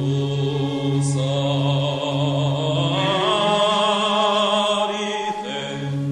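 Mixed choir singing a slow Arabic liturgical chant over a held low note. About halfway through the low note drops out and the upper voices hold a high note with vibrato, then the low note comes back.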